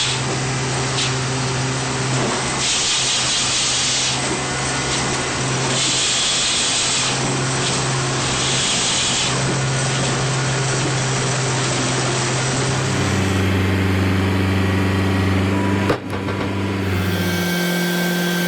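A firewood processor's engine running at a steady pitch, with three bursts of high hissing noise as the machine works. The engine note shifts abruptly twice in the second half.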